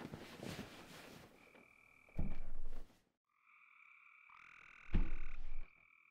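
Two loud, rough croaks, about two seconds and five seconds in, over a faint steady high tone.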